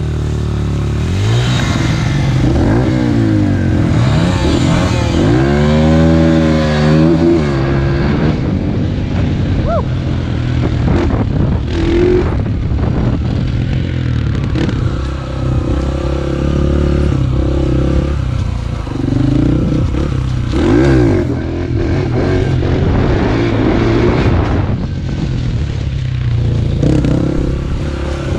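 Dirt bike engine running under the rider, revving up and down repeatedly as the bike is ridden over rough trail, with rattles and knocks from the bike.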